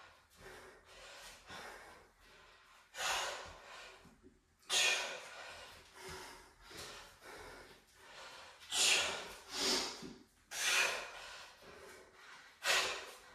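A man breathing hard from the effort of weighted lunges: about six loud, sharp exhales at uneven gaps of one to four seconds, with fainter breaths between.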